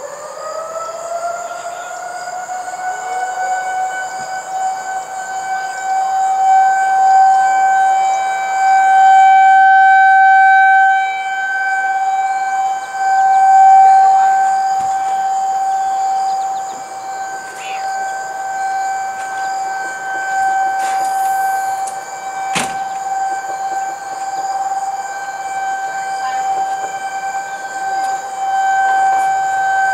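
Outdoor tornado warning siren winding up, its pitch rising at the start, then holding one steady wail while its loudness swells and fades. It is sounding for a tornado warning. A single sharp click comes about two-thirds of the way through.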